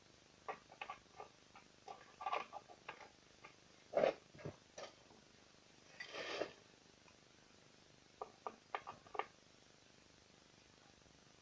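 Irregular small clicks and knocks of hand work close to the microphone, coming in clusters, the loudest knock about four seconds in, with a brief scrape a couple of seconds later.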